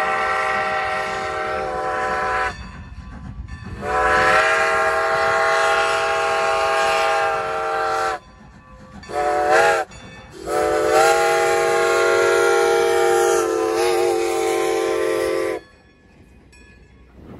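Steam whistle of Strasburg Rail Road No. 90, a 2-10-0 Decapod steam locomotive, blowing the grade-crossing signal: the tail of a long blast, then another long, a short and a final long blast. Near the end the whistle stops and only the train's quieter running noise is left.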